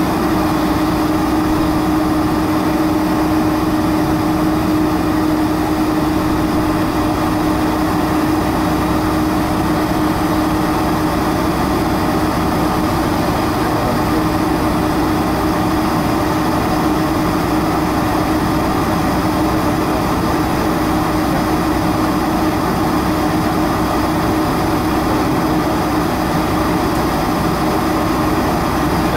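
Cabin noise of a Boeing 747-400 taxiing, its GE CF6-80C2 engines at idle: a steady drone with one low tone held throughout.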